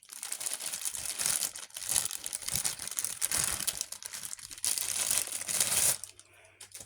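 Packaging crinkling and rustling as it is handled, a dense irregular crackle that stops about six seconds in.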